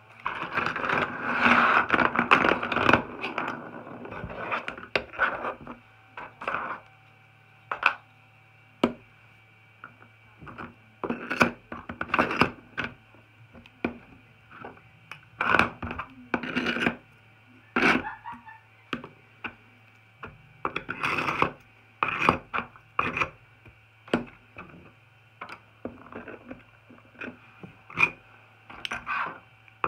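3D-printed plastic cylinders and bases clattering and sliding against each other on a tabletop as they are pushed about, followed by a run of separate knocks and clicks as pieces are picked up and stacked onto one another. A faint steady hum lies underneath.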